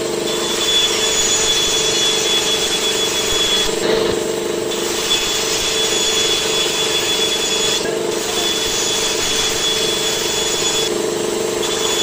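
Band saw running steadily while ripping a thin strip of wood, a low motor hum under a high steady whine. The whine drops out briefly three times, about four, eight and eleven seconds in.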